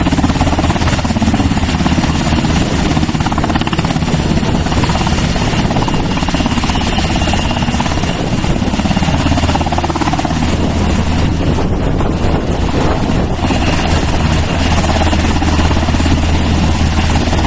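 Helicopter rotor and turbine running steadily and loud, with a fast, even chop of the blades underneath.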